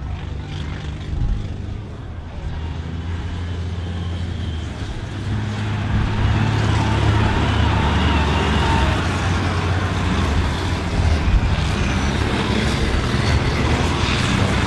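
Diesel engines of race combine harvesters running hard on a dirt track, getting louder about five seconds in as one passes close.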